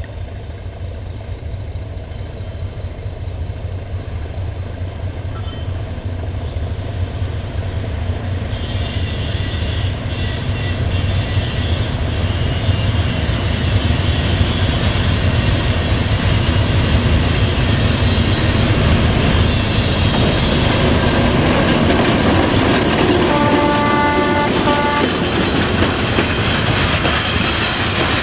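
D12E diesel locomotive hauling a freight train, its engine and rumble growing louder as it approaches and passes, then freight wagons rolling by. Late on, one horn blast of about two seconds.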